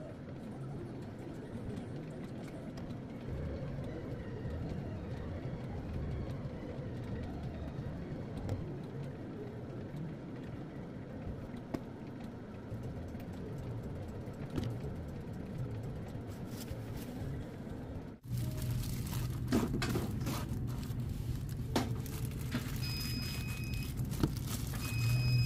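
Steady low hum of bakery kitchen equipment with a few faint clicks. About 18 seconds in it changes to a louder, steadier hum, and near the end two short high beeps sound.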